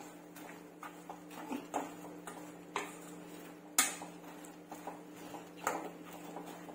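Steel spoon scraping and clinking against a stainless-steel kadai as syrup-coated fried bread cubes are stirred: irregular taps and scrapes, the loudest about three and four seconds in, over a faint steady hum.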